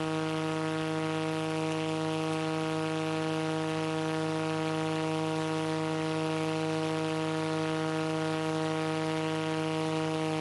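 Direct-drive ULPower 350iS aircraft engine and propeller of a tied-down Zenith Super701 running at full power in a static run-up, a steady drone held at one pitch.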